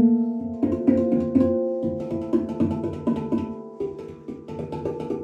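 GLADFRESIT steel handpan in D Kurd minor played by hand: a steady run of struck notes that ring on and overlap. It gets softer toward the middle, then a little louder again near the end.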